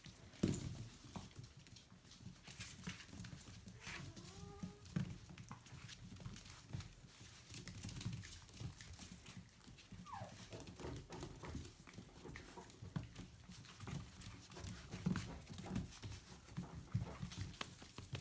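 Aussiedoodle puppies moving about with faint scuffling and small knocks, whimpering now and then: a short whine about four seconds in and a falling whine about ten seconds in.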